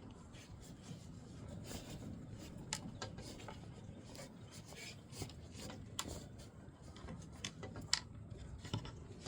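Faint cloth rubbing and rustling from fabric being handled, with scattered light clicks.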